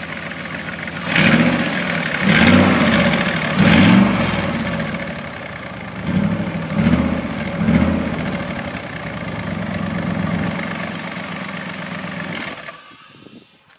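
Fuel-injected LS V8 engine with a custom exhaust, idling and revved in quick blips: three about a second in, three more around six to eight seconds. It then settles back to a steady idle and stops near the end.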